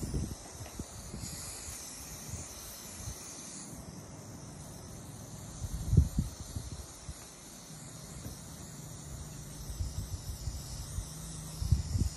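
Aerosol spray-paint can hissing in a strong spray starting about a second in and lasting some two and a half seconds, then fainter spraying. There is a low thump about halfway through and a few more near the end.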